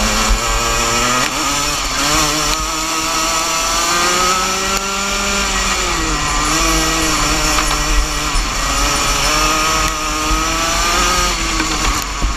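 Rotax Junior Max 125cc two-stroke single-cylinder kart engine at racing speed, heard from the driver's seat. Its pitch climbs, falls around the middle as the kart slows for a corner, climbs again, and drops near the end. Wind rumbles on the microphone underneath.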